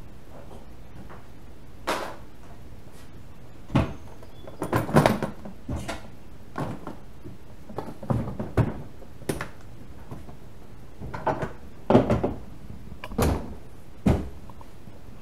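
Plastic SwingCase truck-bed toolbox being shut and swung into place: a string of separate knocks and clunks as the lid and latches close and the case bumps home.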